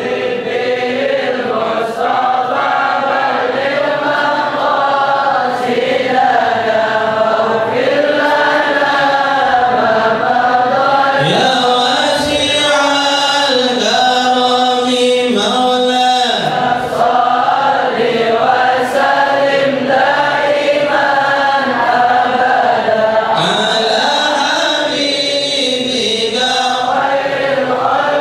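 Several voices chanting a melodic devotional song in long, rising and falling phrases, without a break.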